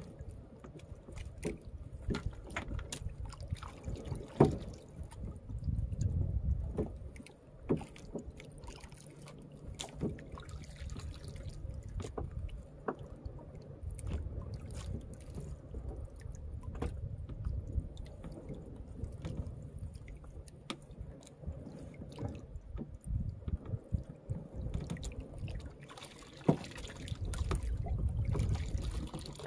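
Sea water sloshing against the hull of a small outrigger boat, in low rumbling swells, with scattered small clicks and knocks as a fishing handline is pulled in by hand. There is a sharp knock about four seconds in and another near the end.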